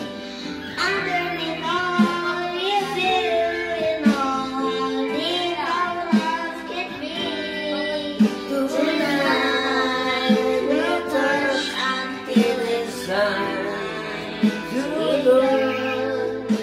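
A young girl singing into a handheld karaoke microphone over a backing track, with held backing notes and a strong beat about every two seconds.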